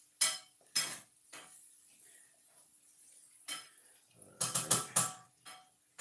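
Wooden spoon knocking and scraping against the sides of a large mixing bowl while folding egg white into waffle batter: a few separate knocks, then a quick run of four or so about four seconds in.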